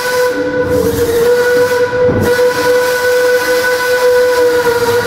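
Narrow-gauge steam locomotive's whistle sounding one long, steady blast over a hiss of steam.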